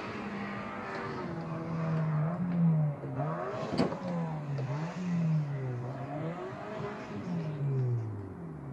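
Car engine revving hard as it is raced, its pitch rising and falling again and again with each burst of acceleration and lift-off. A single sharp crack sounds about four seconds in.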